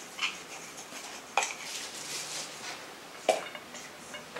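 Parts of a CD/DVD storage rack knocking and clinking together as they are handled during assembly: three sharp clinks, the last with a short ring.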